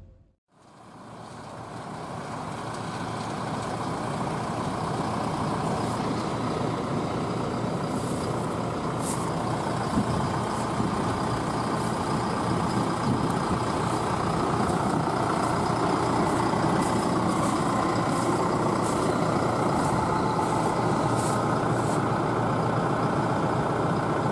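Heavy farm machinery engine running steadily, growing louder over the first dozen seconds or so and then holding, with light high-pitched rattles through the middle.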